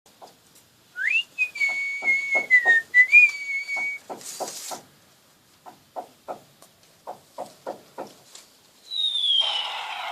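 Whistling: a tone that slides up and holds for about three seconds, over a series of short, quick clicks or taps. About half a second of hiss follows. Near the end a whistle falls in pitch over a rushing hiss.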